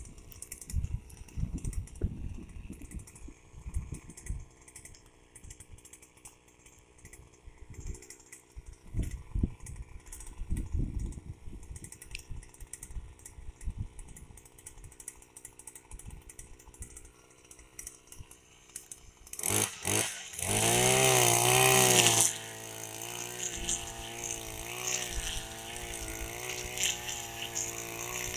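Petrol brush cutter engine starting about two-thirds of the way in: it catches and revs loudly for about two seconds, then settles to a steady running note that wavers in pitch. Before that there is only wind-like low rumble and scattered knocks.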